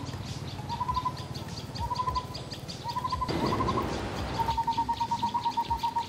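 A bird calling: a rising whistled note repeated about once a second, then from about halfway through a fast run of short notes at the same pitch. A brief rustle sounds in the middle.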